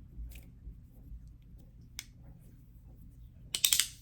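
3D-printed resin magnetic slider fidget being slid and clicked, with faint small clicks, one sharp snap about two seconds in and a quick run of louder clacks near the end.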